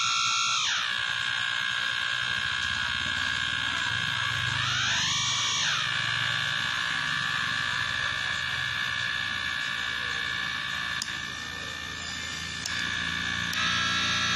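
Electronic tones from a homemade op-amp tone mixer through a small speaker: several steady tones sounding together, one dropping in pitch just after the start, then a tone gliding up and back down about five seconds in as the knobs are turned, and the mix changing again near the end.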